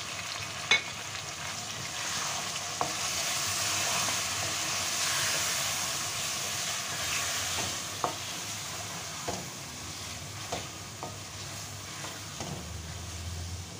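Chicken pieces and fresh tomato paste frying in a metal karahi with a steady sizzle while they are stirred with a spatula. Sharp clicks and scrapes come now and then as the spatula strikes the pan. The masala is being bhuna-fried so the raw tomato water cooks off.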